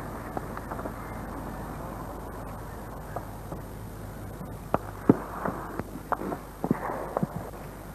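Scattered small-arms gunfire: irregular sharp cracks, starting about halfway in, the loudest about five seconds in, over the steady hiss and low hum of worn videotape audio.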